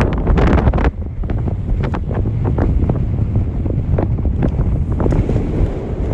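Wind buffeting a phone's microphone: a loud, gusting low rumble with irregular crackles, strongest in the first second.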